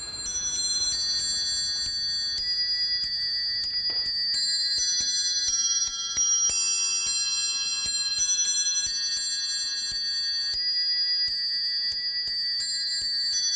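Antique bracket clock playing a tune on its nest of bells, small hammers striking high ringing notes about twice a second, each note ringing on under the next.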